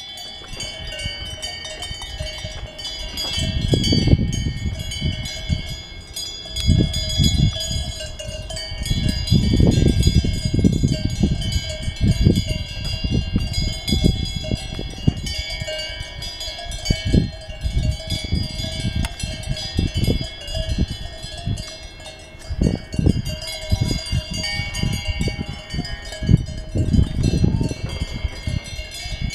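Many cowbells on grazing cattle ringing together, a steady jangle of overlapping bell tones, with wind buffeting the microphone in repeated gusts.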